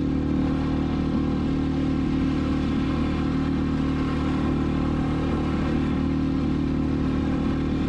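Outboard motor of a small inflatable boat running steadily under way, its engine note holding an even pitch.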